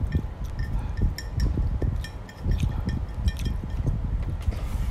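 Wooden chopsticks clicking and tapping against each other and on a ceramic plate: a string of light, sharp clicks over dull low knocks of handling on the table.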